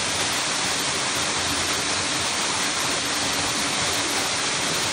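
Waterfall cascading over a rock face: a steady rush of falling water.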